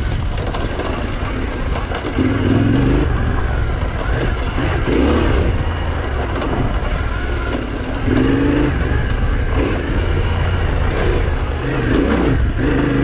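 Yamaha Tenere 700's parallel-twin engine pulling under changing throttle on a rough dirt trail, its revs rising and falling in surges, loudest about two and eight seconds in.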